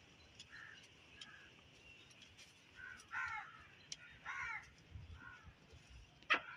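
Crows cawing, several short, harsh calls spaced irregularly, with one sharp click near the end.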